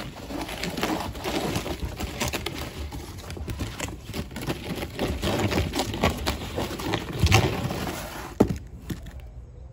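A box being handled and dragged: a run of crackling, scraping and knocking, with a heavier thump about seven seconds in and a sharp knock shortly after.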